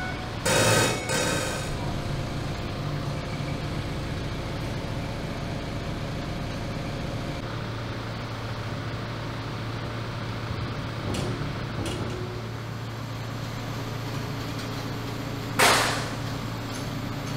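Forklift running with a steady low hum while it holds a suspended steel hull plate, with a few short noisy bursts about a second in and one loud, short sharp noise near the end.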